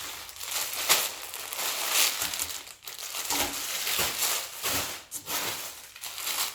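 Packaging and clothes rustling and crinkling in irregular bursts as clothes are handled and pulled out of a shipment.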